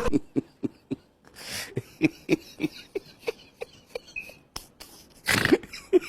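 A dog eating from a pot: short repeated sounds about three a second, with two louder noisy bursts, one early and one near the end.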